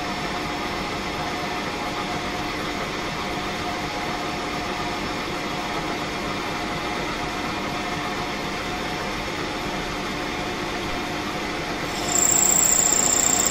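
Smart & Brown toolroom lathe running steadily with its spindle turning, a machine hum with a steady tone through it. About twelve seconds in, it gets louder with a high-pitched whine added as the tool works at the end of the stainless steel rod.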